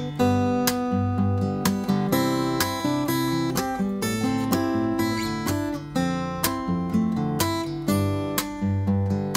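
Solo acoustic guitar played fingerstyle: an instrumental arrangement of a Thai song, with a plucked melody over a bass line in a steady rhythm.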